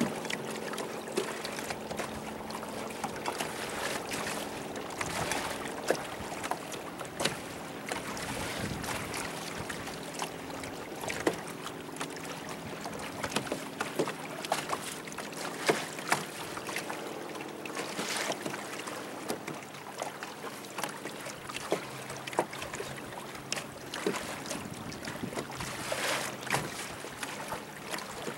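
Water slapping and splashing against a small boat's hull as it moves over choppy water: a steady wash broken by frequent, irregular sharp slaps.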